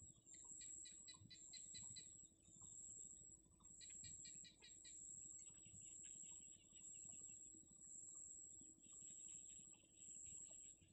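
Faint high-pitched insect trill pulsing on and off about once a second, with bursts of rapid high bird chirps near the start and about four seconds in, and softer chirping later on.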